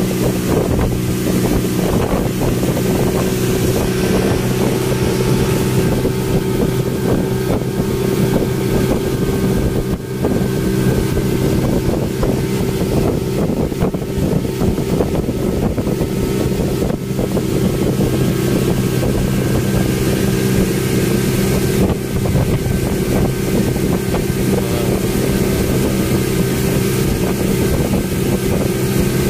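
Speedboat engine running steadily at cruising speed: an unchanging drone heard from inside the covered passenger cabin, with wind noise on the microphone.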